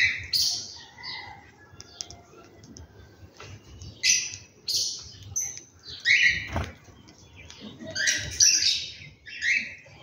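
House sparrows chirping: short, bright chirps in irregular clusters every second or two, with a soft low thump about two-thirds of the way through.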